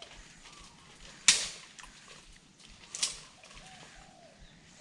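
Two short, sharp noises about a second and a half apart, the first the louder, from a spinning rod and reel being worked. Faint bird calls come near the end.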